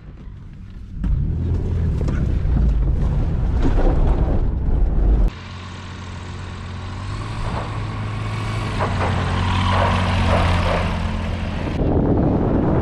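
A four-wheel-drive vehicle on the move, with a steady low engine hum under road and wind noise. The sound drops abruptly to a quieter, different drive about five seconds in and grows louder again near the end.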